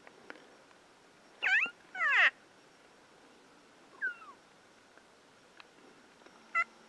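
Elk mewing: short, high calls that slide down in pitch. Two come close together about one and a half seconds in, a fainter one about four seconds in, and a brief one near the end.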